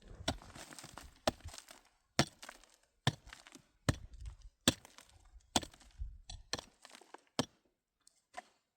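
A tool chopping at something hard, a sharp strike about once a second, nine strikes in all, stopping near the end.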